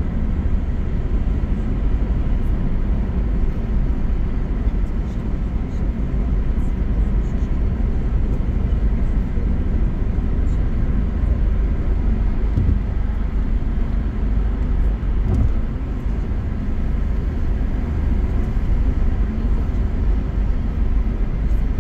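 Steady low rumble of road and tyre noise inside a car's cabin while cruising at highway speed.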